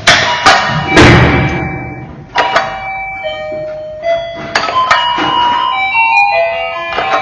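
Electronic bell and melody tones from a VINGA HISS TMS50 sound-effect unit: a few sharp, noisy crash-like hits in the first second or so, then a run of synthetic beeping notes stepping up and down in pitch like a chime tune.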